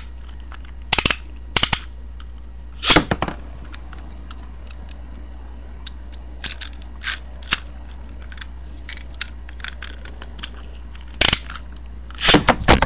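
Metal-wheeled Beyblade spinning tops battling in a cardboard box, clacking sharply as they strike each other and the box walls. A few loud hits come about a second in and the loudest near three seconds, light scattered ticks follow through the middle, and a cluster of hits comes near the end.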